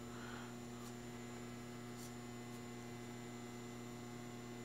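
Steady low electrical mains hum under faint room tone, with a few faint ticks.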